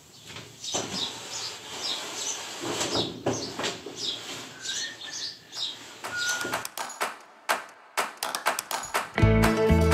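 A large thin flexible wall panel flexing, wobbling and rattling as it is lifted and pushed against the ceiling, followed by a run of sharp clicks and knocks. Music with a steady beat starts about nine seconds in.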